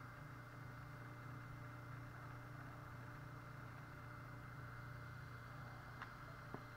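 Quiet steady low hum with hiss, and two faint clicks near the end.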